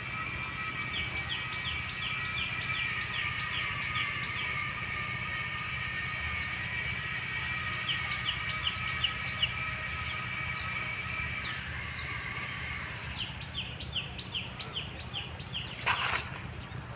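A bird calling in quick runs of short, falling notes, three runs in all, over a steady high-pitched whine that fades out about twelve seconds in. A short, sharp noise comes near the end.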